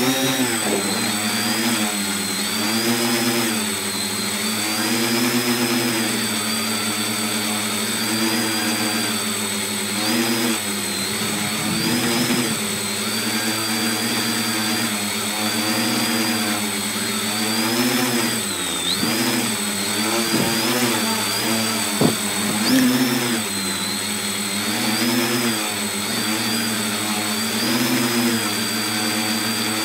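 Tricopter's electric motors and propellers buzzing, heard from the phone mounted on the airframe. The pitch wavers up and down constantly as the motor speeds change in flight, with a steady high whine above it. One sharp tick about 22 seconds in.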